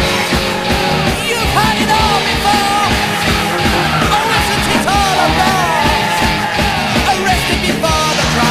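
Rock music with a sung lead vocal over a steady drum beat.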